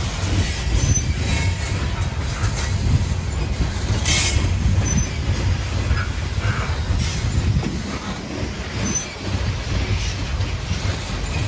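Open-top hopper cars of a CSX freight train rolling past: a steady low rumble of steel wheels on rail, with short high wheel squeals now and then and a sharp clank about four seconds in.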